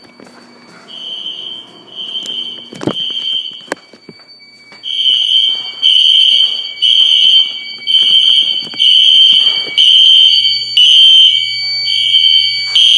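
Home fire alarm system in alarm from its zone 1 smoke detector: the sounders pulse a high electronic beep about once every three-quarters of a second. The beeps are fainter for the first few seconds, break off briefly with a couple of clicks, then come back louder about five seconds in over a steady high tone.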